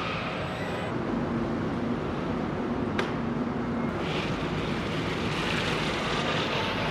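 Steady mechanical rumble and noise, with a sharp click about three seconds in.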